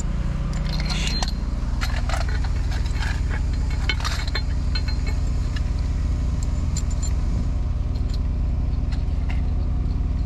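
An engine runs steadily, giving a constant low hum, while metal parts clink and scrape several times in the first half and only occasionally after.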